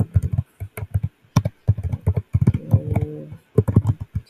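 Typing on a computer keyboard: a quick, irregular run of key clicks as a short line of text is entered.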